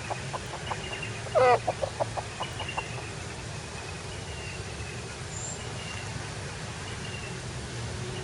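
A chicken calls once loudly and then gives a quick string of short clucks, about a second and a half in. Faint high chirps repeat throughout over a steady background hiss.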